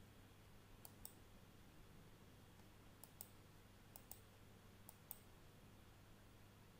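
Computer mouse clicked four times, each click heard as a quick pair of faint ticks from the button being pressed and released, over a faint steady low hum.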